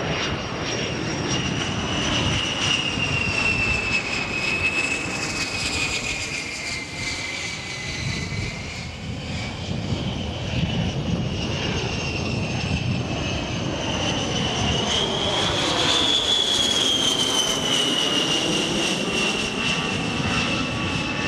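A-10 Thunderbolt II's twin TF34 high-bypass turbofan engines running in flight: a loud, high whine over a steady rumble. The whine's pitch sags slowly over the first several seconds, rises about two-thirds of the way through, then slowly falls again.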